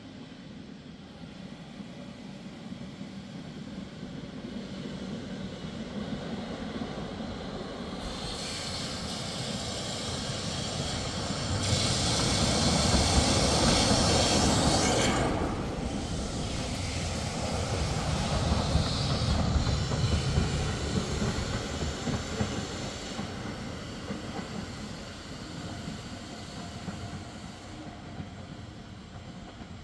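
Vintage museum tram running on its rails, building to a loud peak about halfway through and then fading away.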